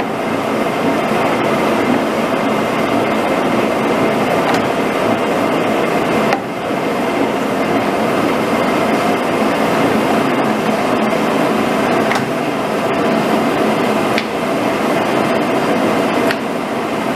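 Heylingstaedt gap-bed engine lathe running: a steady, loud mechanical noise from the spindle and geared headstock, with a faint steady whine. The level dips briefly about six seconds in and again near the end.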